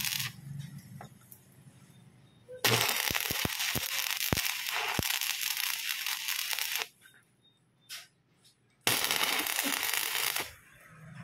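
Stick (arc) welding on a steel propeller shaft: the arc crackles and hisses in three runs, a brief one that cuts off at the start, a longer one of about four seconds, and one of about a second and a half near the end, with quiet pauses between as the welder stops and restrikes.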